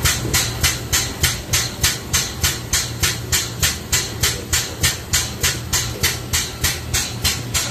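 Chip-and-coolant suction unit working, its pump pulsing in an even rhythm of about three hissing strokes a second over a low hum as the hose draws up coolant and Bakelite chips.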